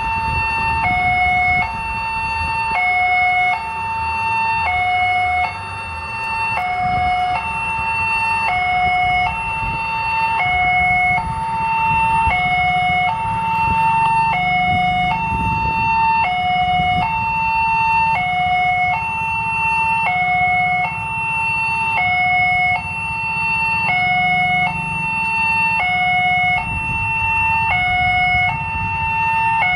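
Railway level crossing's electronic warning alarm sounding, a repeating two-tone signal that alternates a higher and a lower tone, about one pair every two seconds. It starts suddenly and warns that a train is approaching.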